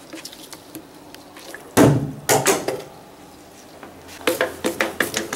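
Water-filled plastic snow globe striking the wall and floor: one loud thud about two seconds in, a couple of smaller knocks right after, then a run of lighter knocks and clicks near the end. The globe dents but does not break.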